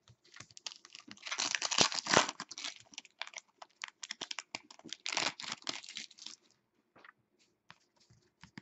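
Foil wrapper of a hockey trading-card pack being torn open and crinkled, in two crackling bouts about a second in and about five seconds in, with lighter clicks and rustles of the cards being handled in between and after.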